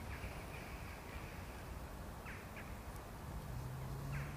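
Faint outdoor background hiss with a few short, distant bird calls. A faint low steady hum comes in about three seconds in.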